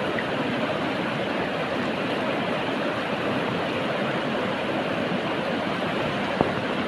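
River water rushing steadily, with a single sharp click near the end.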